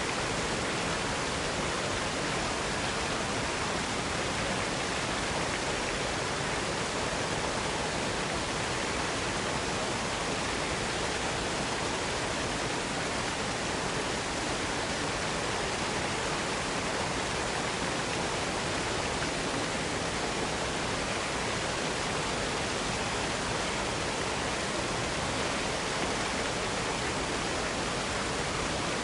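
Waterfall rushing: a steady, even roar of falling water with no change.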